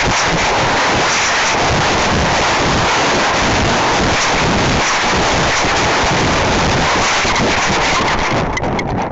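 Wind rushing over the microphone of a camera riding on a high-power rocket as it comes down, a loud, even hiss. The higher part of the rush thins out shortly before the end.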